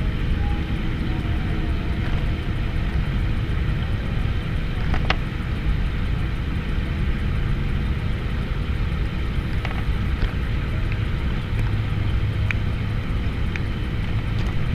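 Steady wind rumble on an action camera's microphone, with a sharp click about five seconds in and a few faint ticks as a small fish is unhooked by hand.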